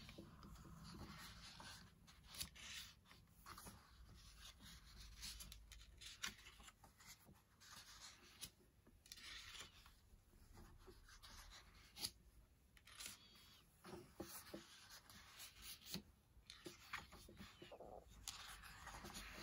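Faint rustling of paper as colouring-book pages are turned and handled, with scattered soft brushes and small page slides.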